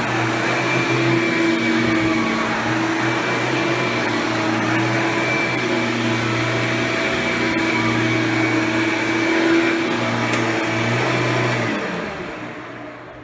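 Hoover Power Drive Supreme self-propelled upright vacuum running steadily, its Quadraflex brush roll spinning. Near the end it is switched off, and the motor winds down with falling pitch and fades away.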